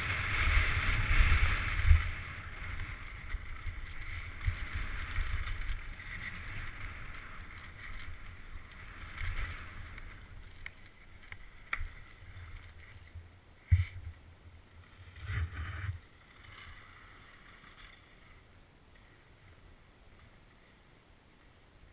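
Wind rushing over a helmet-mounted camera's microphone and mountain bike tyres rolling over a dirt trail on a downhill run, with a few sharp knocks from bumps about 14 and 15 seconds in. The rushing is loudest at the start and dies away near the end as the bike slows to a stop.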